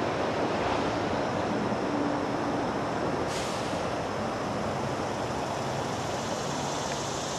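Steady rumble of distant vehicle traffic: a continuous even noise with a faint low hum under it.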